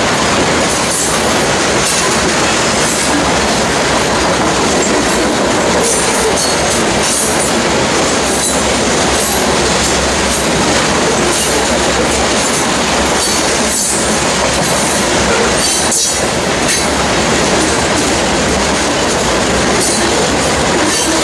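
Grain train's covered hopper cars rolling past: a steady, loud rumble of steel wheels on rail, with occasional clicks as wheels cross rail joints.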